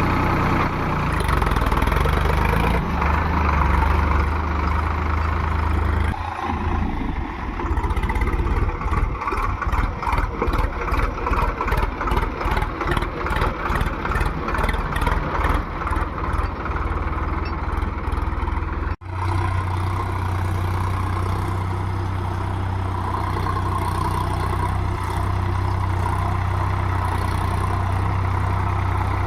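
Heavy diesel engine of a tractor or backhoe loader running steadily, then pulsing in a rhythm of about two to three beats a second for some thirteen seconds. It breaks off abruptly for an instant and goes back to steady running.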